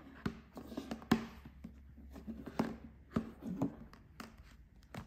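Hands handling phones: about a dozen irregular taps and clicks, the loudest about a second in, over a faint steady low hum.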